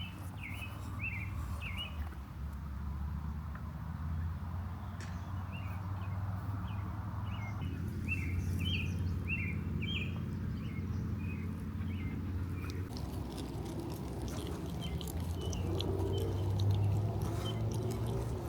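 A songbird chirping in runs of short, quick notes: a brief run at the start and a longer one about five seconds in. A steady low rumble runs underneath.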